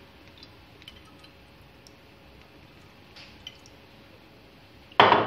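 Fish sauce poured from a bottle into a metal tablespoon and tipped into a ceramic bowl: faint small drips and ticks. About five seconds in comes one sharp, loud clink that rings briefly.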